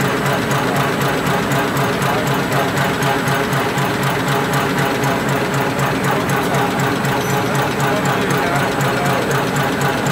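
Four-line napkin tissue folding machine running, a steady fast mechanical clatter with an even rhythm of small ticks.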